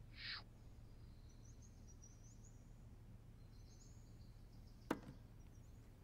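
Near silence: faint room tone with a few faint high chirps and a single sharp click about five seconds in.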